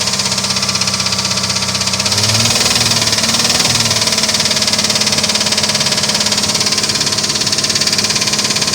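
Engine idling steadily with a fast, regular knock running through it, a knock of unknown cause.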